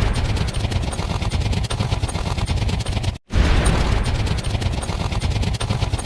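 Sound effect of a dense, rapid barrage of sharp gunfire-like cracks over a low rumble. It cuts out for a split second about three seconds in, then starts again.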